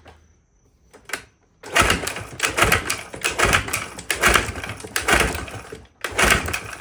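1969 Johnson 9.5 hp outboard turned over by its recoil starter rope in several quick pulls, a loud rattling clatter that surges with each pull, with a last pull after a short pause near the end. The motor is being cranked for a spark test, and the bottom cylinder gives no spark.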